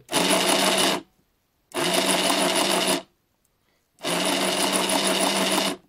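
Nerf RapidStrike's pusher motor and gearbox running in three bursts of about a second or more each, stopping dead between them. Each run lasts until the pusher comes back and presses the cycle-control switch.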